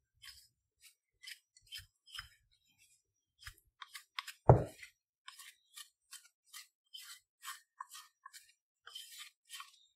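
Wooden spatula scraping and folding shaggy bread-flour pizza dough against a glass bowl: repeated short scrapes, coming faster, about three a second, in the second half. One dull thump about four and a half seconds in.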